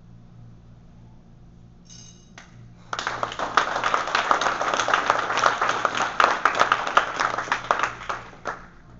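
Small audience clapping for about five seconds, starting about three seconds in and dying away near the end, after a sai kata ends with a bow. A brief ringing ping comes just before the clapping starts.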